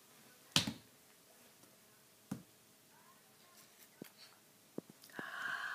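A baby's hand smacking a hardwood floor: one sharp smack about half a second in and a duller thump a couple of seconds later, then a few light pats as she crawls. A breathy whisper starts near the end.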